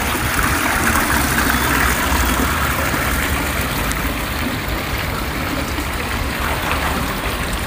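Steady engine rumble and rushing road noise of a motor vehicle running.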